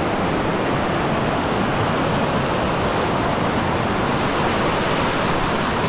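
Shallow river rapids rushing over rocks, a steady, unbroken roar of water.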